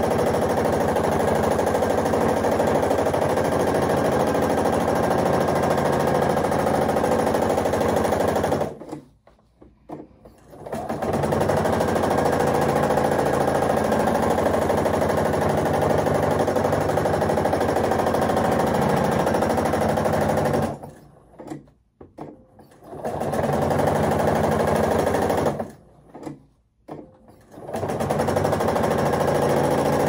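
Domestic sewing machine stitching steadily at speed during free-motion quilting, stopping briefly and starting again three times: about nine, twenty-one and twenty-six seconds in.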